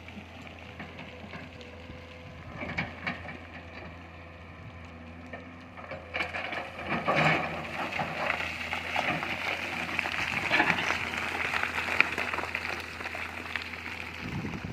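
Excavator working: a steady low engine hum under irregular crackling and snapping, which gets louder from about six seconds in.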